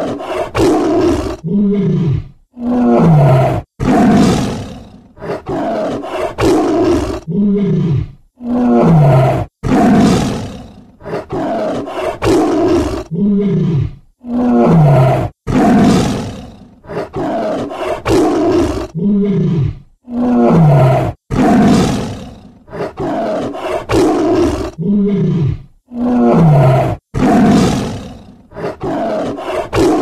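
Tiger roaring and growling: loud, long roars alternating with shorter growls, some of which fall in pitch. The same sequence of calls repeats about every six seconds.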